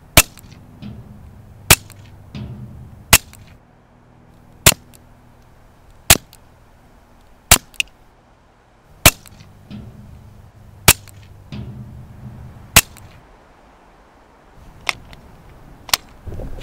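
Suppressed .22 LR pistol shots from a Smith & Wesson M&P 22 fitted with a SilencerCo Sparrow 22 silencer. There are about nine sharp cracks, one roughly every one and a half seconds, each with a short tail. A few quieter knocks follow near the end.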